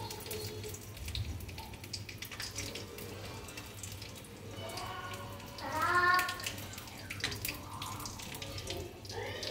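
Frying sizzle: butter on a hot iron tawa under toasting burger buns and oil in a kadai, hissing and crackling steadily. A short vocal sound rises above it about six seconds in.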